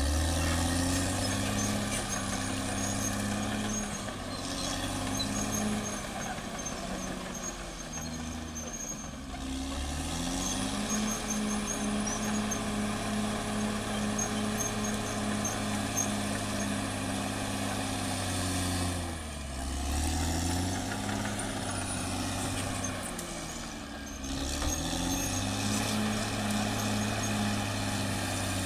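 CAT D6R XL bulldozer's diesel engine working under load, with the engine note sagging and picking back up three times: around 9 seconds in, around 19 to 20 seconds in, and around 24 seconds in.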